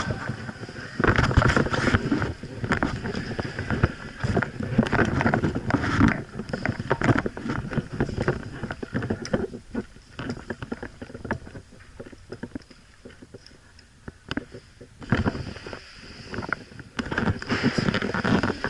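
Movement noise on a body-worn action camera: irregular rustling and scattered knocks, like clothing and gear brushing against it and footsteps while moving. It is quieter for a few seconds past the middle.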